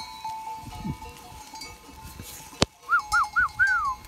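Bells on a herd of goats ringing steadily. A sharp click comes a little past halfway, then four short whistled notes, each rising and falling, the last one longest.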